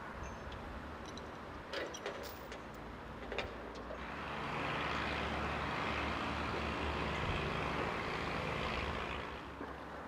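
A road vehicle running steadily in the background, swelling in about four seconds in, holding for about five seconds and fading near the end. A few light clicks and knocks come before it.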